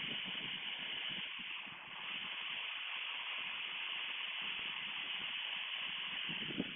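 Steady cabin noise of a Piper Comanche 250 in flight, with its engine and the airflow blending into an even hiss that dips slightly about two seconds in. A short knock sounds near the end.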